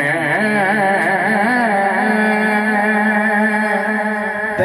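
Male naat reciter singing a long melismatic phrase into a microphone. His pitch wavers in ornaments, then settles into a steady held note about halfway through.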